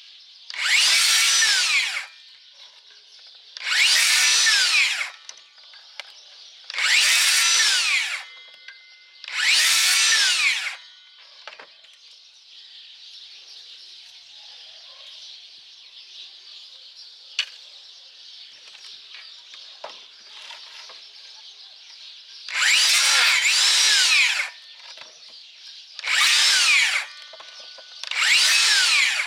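DeWalt DCS578 60V Flexvolt brushless circular saw triggered in short bursts through thin branches. Each time it spins up, cuts, and its electric brake pulls the blade quickly to a stop. There are four bursts, a pause of about ten seconds, then three more.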